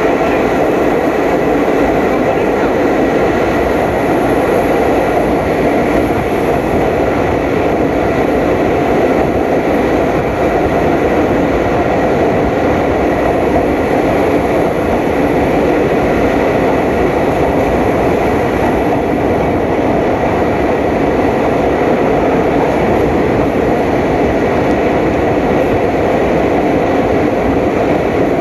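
Passenger train running steadily along the track: a loud, even rush of wheel and carriage noise, with a faint steady whine above it.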